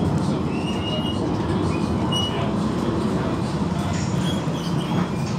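City tram running along its rails, heard from inside the car: a steady low rumble of wheels and running gear, with a few short, faint high squeaks from the wheels on the rails.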